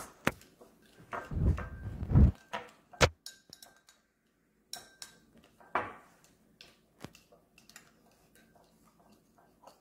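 Plastic spoon stirring melted butter in a small ceramic bowl: scattered clicks and scrapes of the spoon against the bowl, with a cluster of heavier knocks in the first few seconds and sparser, fainter clicks after.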